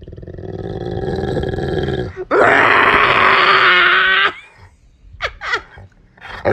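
A dog grumbling and growling, rising in loudness, then breaking into a loud, harsh, drawn-out howl-like cry a little over two seconds in, followed by a few short yips.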